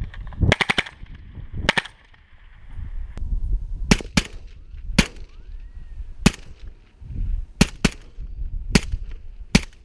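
AK-pattern rifle fitted with a Dead Air Wolverine PBS-1 suppressor, firing about a dozen suppressed shots at an uneven pace, a few in quick succession.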